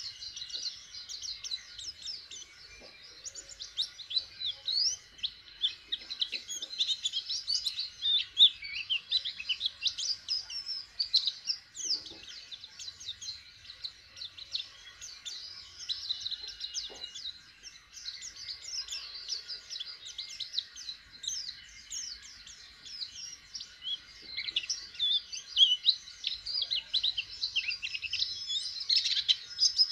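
A white-eye (pleci) singing a fast, high twittering song of quick chirps and trills, going on almost without a break. It is a young bird just starting to sing.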